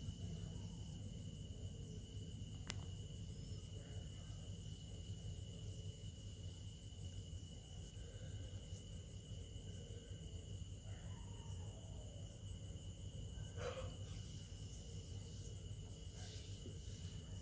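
Faint steady electrical hum with a thin high whine over it, one sharp click about three seconds in and a soft handling sound near the end.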